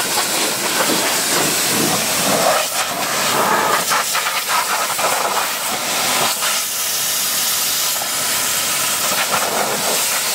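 Pressure-washer jet spraying water onto a car's rear bumper and wheel: a loud, steady hiss of spray whose tone shifts as the jet moves over the surfaces.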